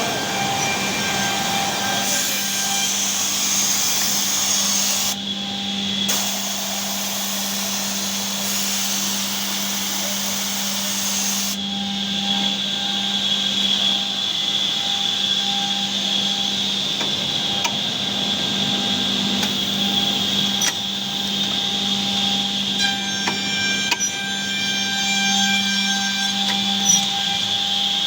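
KDT Edgetech edge banding machine with pre-milling and grooving units running steadily: a constant motor hum under a high whine, with the hiss of its cutters on the panel edge changing a few times.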